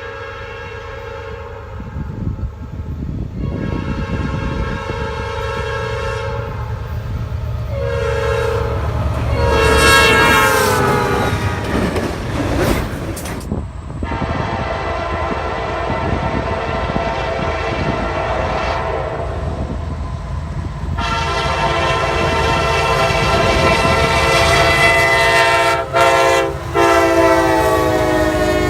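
Diesel locomotive air horn sounding a chord in a series of blasts, the last one falling in pitch as the locomotive passes, followed by the rumble and clatter of the train rolling by. About two-thirds of the way in, another long horn blast starts and is briefly broken near the end.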